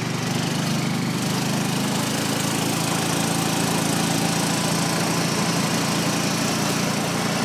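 Gator utility vehicle's small engine running steadily under way, with a steady rush of wind and road noise over it.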